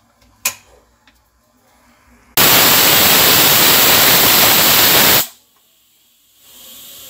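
Pressure cooker whistling: a sudden, very loud rush of venting steam for about three seconds that cuts off abruptly. A softer steady hiss starts near the end.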